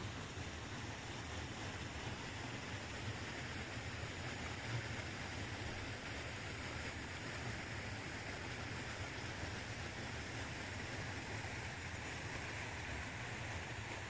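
Steady outdoor rushing noise with no distinct events, even in level throughout.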